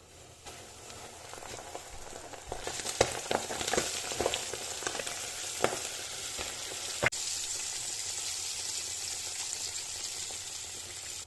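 Chicken skin frying in hot fat. The sizzle builds about two seconds in, with scattered pops and crackles through the middle, then settles into a steady sizzle.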